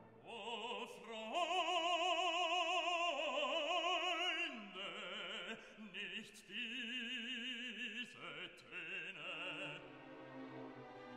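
Background music: a classical piece with an operatic voice singing long held notes with heavy vibrato.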